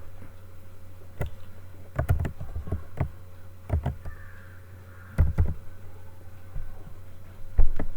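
Irregular sharp clicks and taps of a computer mouse and keyboard being worked, over a steady low electrical hum.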